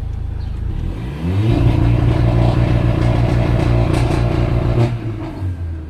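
Mercedes-AMG GLA 45's turbocharged 2.0-litre four-cylinder engine and exhaust under hard throttle: the revs climb about a second in, run loud at a steady high pitch for a few seconds, then drop off near the end as the throttle is released.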